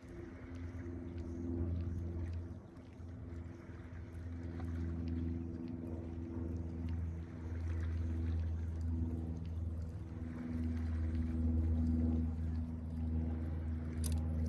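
Motorboat's outboard engine running steadily as a low hum, swelling and easing a little in loudness. A short rattle comes near the end.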